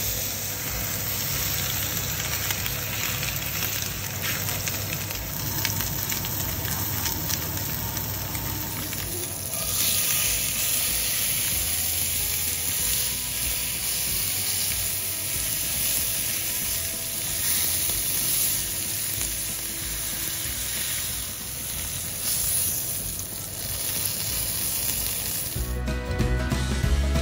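Wagyu shorthorn steak sizzling in olive oil in a hot frying pan, a steady crackling hiss that grows louder about nine seconds in. Music comes in just before the end.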